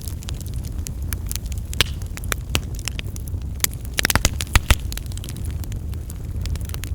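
A fire crackling, with sharp pops over a steady low rumble. A quick flurry of pops comes about four seconds in.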